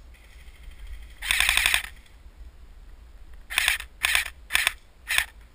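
Airsoft rifle firing on full auto: one burst of about half a second, then four short bursts about half a second apart, each a fast clatter of shots.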